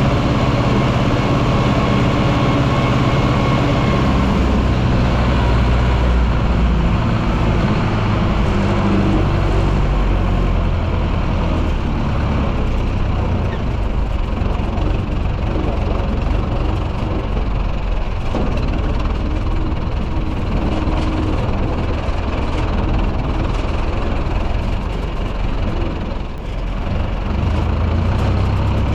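Vintage Zetor tractor's diesel engine running, its speed shifting a little now and then, with a short drop in level near the end.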